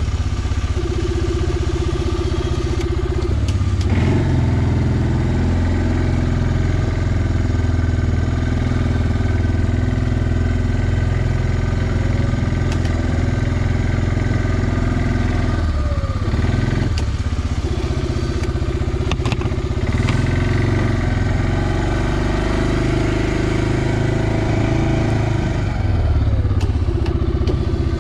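Suzuki King Quad 400 ATV's single-cylinder four-stroke engine running at low speed while the ATV pushes a front snow plow. The engine note drops and picks up again briefly a few times.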